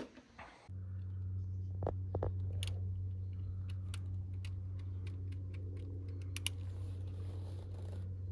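A small knife scraping old silicone sealant off a car's oil pan flange, making irregular sharp ticks and light scrapes. A steady low hum runs underneath.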